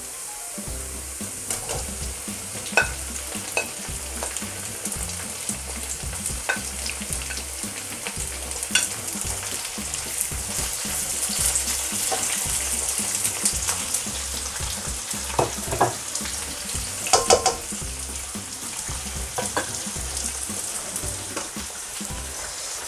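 Sliced onions sizzling in hot oil in a nonstick wok, a steady hiss, with the scrape and tap of a spatula against the pan as they are stirred, a few sharper knocks standing out now and then.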